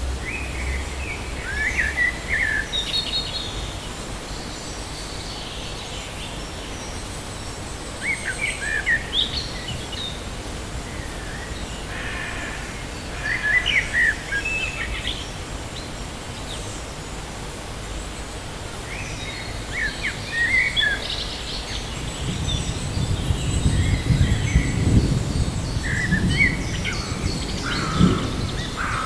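Forest birds singing: short chirping song phrases about every five or six seconds over a steady background hiss. A low rumble builds in the last several seconds.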